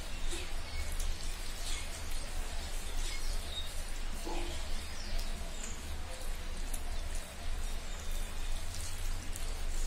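Steady rushing background noise with a low rumble. Over it come faint small clicks of a person eating rice by hand from a steel plate.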